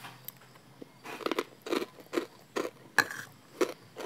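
A person chewing a spoonful of chili paste with pork cracklings, crunching about twice a second, starting about a second in.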